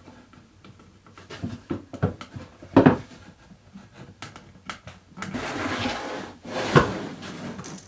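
Wooden parts of a Swiss stone pine bread box being fitted together: light knocks and taps, a louder knock about three seconds in, then wood sliding and rubbing against wood for about a second, ending in another knock.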